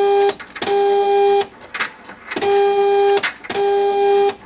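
Pitney Bowes DM100 postage meter purging its ink system after a new print head and ink tank are fitted: the mechanism gives four steady, loud buzzes of under a second each, in two pairs, with fainter mechanical noises between them.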